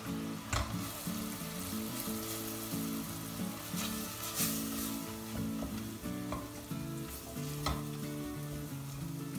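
Sliced mushrooms and flour sizzling in butter and oil in a stainless steel pot while a wooden spoon stirs them, knocking against the pot a few times: the flour being toasted into a roux.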